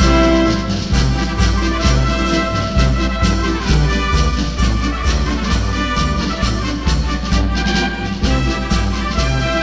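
Background music with a steady bass beat and brass-like instruments.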